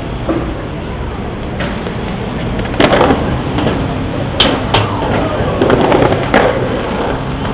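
Skateboard wheels rolling on hard ground with a steady rumble, broken by four sharp clacks of the board hitting the ground, two close together near the middle.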